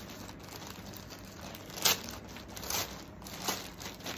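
Plastic courier mailer bag crinkling and rustling as it is handled and opened, with a few sharp crackles, the loudest about two seconds in.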